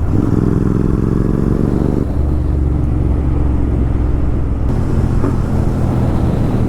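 Royal Enfield Continental GT 650's 648 cc parallel-twin engine running through a Red Rooster aftermarket exhaust while the bike is ridden. The revs climb for about two seconds, then the pitch drops and holds steady.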